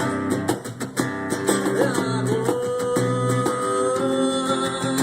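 Live acoustic rock music: acoustic guitars strumming and picking a steady chord pattern, with a long held note over them from about two seconds in.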